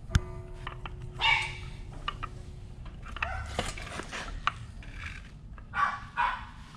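A sharp metal clink just after the start that rings on for about two and a half seconds, then a few short, loud yelps, like an animal's barks: one about a second in and two close together near the end.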